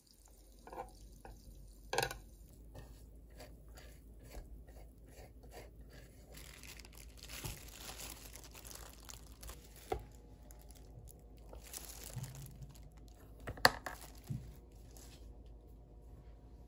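Butter sizzling on a sandwich maker's hot plates while slices of bread are laid in, with crinkling and clicking handling noise. About three seconds before the end, the appliance's lid is shut with one sharp clack, the loudest sound.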